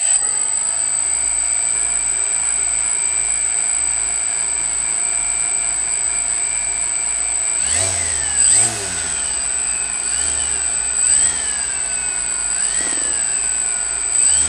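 DJI Phantom FC40 quadcopter's brushless motors and new propellers spinning with a steady high whine on a test run after crash repair; from about eight seconds in, several quick throttle blips make the pitch rise and fall.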